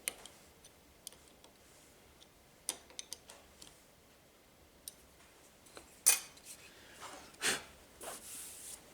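Small metallic clicks and taps of a spanner working the retaining screws of a planer cutter block, nipping the knife lightly in place. Two louder knocks come about six and seven and a half seconds in, followed by a brief scrape.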